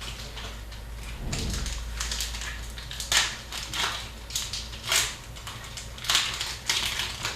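Hockey card packs being opened and handled: wrappers crinkling and cards rustling in irregular bursts, louder about three, five and six seconds in.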